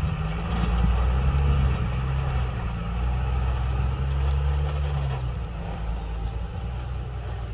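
Heavy diesel engines running: a JCB backhoe loader's engine close by and a loaded dump truck's engine as it pulls away. The deep engine note steps up and down a few times.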